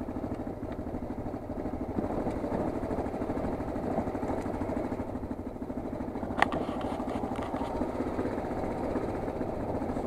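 Motorcycle engine running at low revs, steady and evenly pulsing, as the bike rolls slowly along a rough dirt track. A single sharp knock comes about six seconds in.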